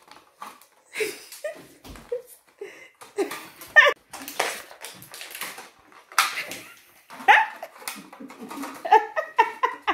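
People eating popcorn out of paper cups with their mouths, no hands: the cups knock and scrape on the table and popcorn is crunched, with short voice-like squeals and cries in between.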